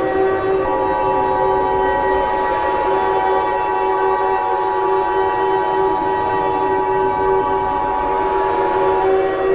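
The Emergency Alert System two-tone attention signal (853 and 960 Hz sounding together) comes in under a second in and cuts off near the end. Under it a steady multi-tone siren chord sounds throughout.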